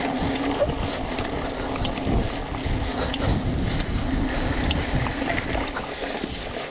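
Wind buffeting the camera microphone with a steady low rumble, as a hardtail mountain bike (a BMC Twostroke AL 2) rides fast over a dirt trail. Many small clicks and rattles from the bike and trail are scattered through it.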